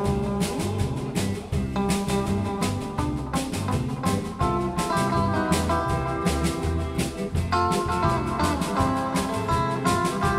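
Small live band playing: electric guitars over a steady drum-kit beat.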